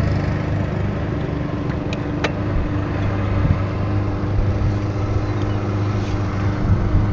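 Steady low mechanical hum, like a running motor or engine. A couple of faint clicks come about two seconds in.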